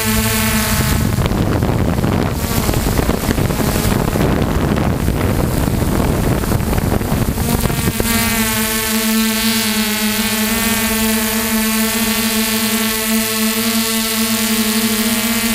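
Electric RC helicopter's motor and rotor whine, heard from its onboard camera as a steady hum with even overtones. From about a second in until about eight seconds, a rush of wind on the microphone covers it, then the steady whine comes back.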